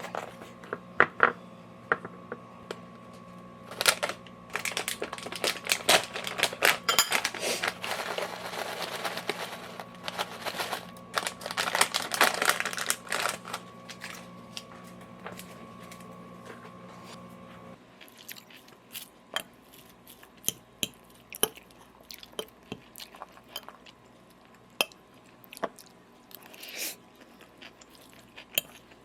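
Kitchen food-preparation sounds: sharp clicks and taps of utensils, with a long stretch of crunching and crinkling in the first half. A steady low appliance hum underneath stops suddenly partway through, followed by sparser clicks.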